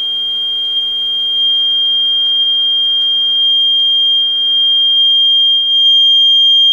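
Steady 3 kHz sine test tone played loud through a small loudspeaker driven by a TDA2003 amplifier during a power test. It is a single high pitch held without a break, getting a little louder about five seconds in.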